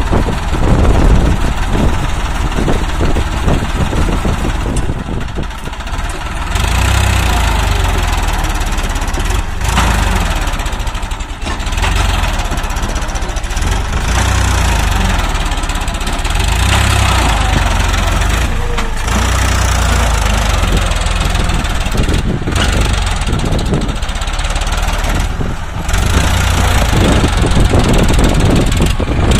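Farmtrac 60 EPI tractor's three-cylinder diesel engine running under heavy load, its note rising and falling several times as the tractor strains to pull a loaded trailer out of soft sand where it is stuck.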